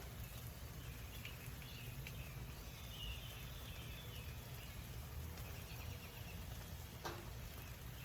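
Faint outdoor background: a steady low rumble with a few faint bird chirps about three seconds in and a light click near the end.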